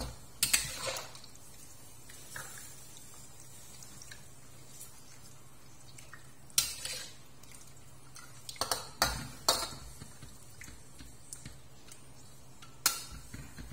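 Metal spatula scraping and clanking against a stainless steel wok while stirring meat in sauce, in scattered strokes: one just after the start, one about six seconds in, a quick cluster around nine seconds and one near the end.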